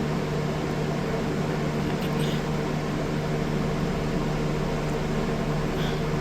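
Steady machine hum of a running appliance with a low drone, with a faint brief sound about two seconds in and another near the end.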